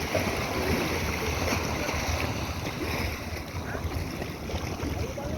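Wind buffeting the microphone in uneven low gusts, over a steady wash of sea water.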